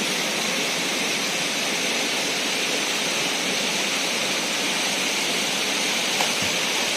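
Steady rush of a waterfall: falling water making an even, unbroken hiss.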